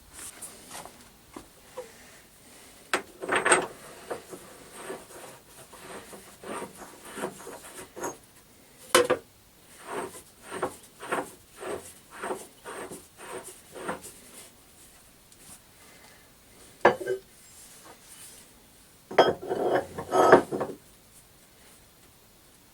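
Metal clinks and knocks as the chuck of a Smart and Brown model L lathe is taken off and a collet chuck fitted. In the middle there is a run of about a dozen even knocks, about two a second, and a louder cluster of clatter comes near the end.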